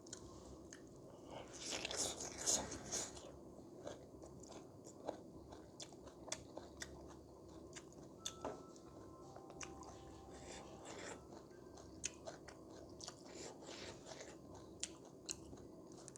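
A person eating close to the microphone: chewing and biting, with many small wet mouth clicks and a louder patch of chewing about two seconds in.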